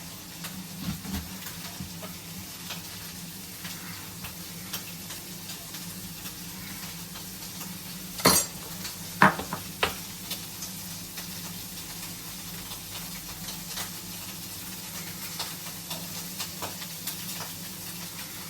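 Bacon sizzling and crackling as it fries in a pan, with three sharp knocks about halfway through.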